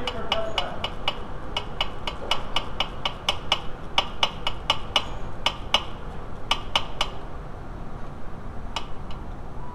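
A fast, even run of sharp metallic clicks, about four a second, that stops about seven seconds in and is followed by two more clicks near the end. It comes from hand work on the shifter rod linkage's fittings under a VW transaxle.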